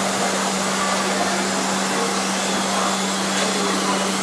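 Steady rushing noise with a constant low hum underneath, unchanging throughout.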